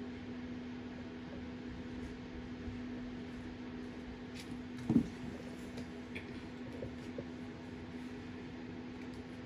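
Steady low electrical hum, as from a fan or appliance, with room hiss. One short, sharp sound stands out about five seconds in.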